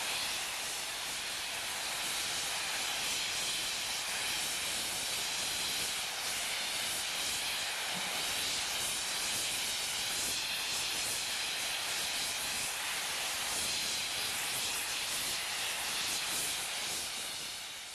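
New Zealand Railways JA-class 4-8-2 steam locomotive's safety valves blowing off, a steady loud hiss of escaping steam. The boiler is at full working pressure.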